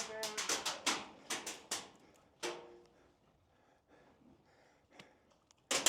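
Airsoft guns firing: a rapid string of sharp shots, about four or five a second, over the first two seconds, then a lull, with another burst of shots starting just before the end.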